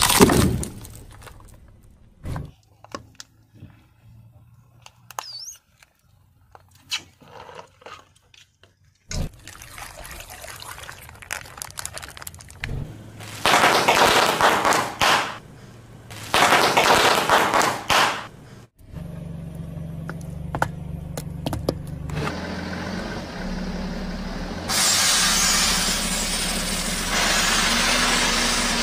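Objects crushed under a car tyre one after another: a crunch as a ball of puffed corn snacks gives way, scattered cracks, then two loud spells of crackling as wrapped snack cakes in plastic packets are flattened. Later a car engine runs steadily, with a steady hiss over it in the last few seconds.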